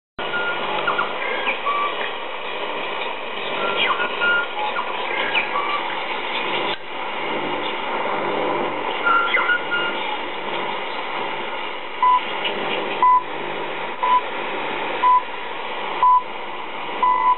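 Weak shortwave AM signal of Radio New Zealand on a Panasonic DR48 receiver: hiss and static with faint warbling interference tones. About twelve seconds in come six short time-signal pips, one a second, the last slightly longer, marking the hour.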